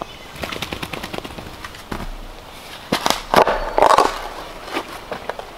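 Long-handled garden tool scraping and chopping into sandy soil: a string of strikes and scrapes, the loudest scrapes about three to four seconds in. Faint bird chirps.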